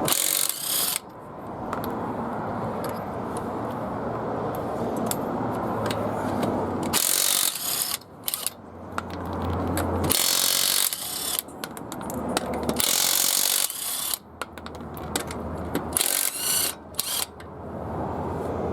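Neiko 20-volt cordless 1/2-inch impact wrench hammering in several bursts of a second or two, working lug nuts off a wheel.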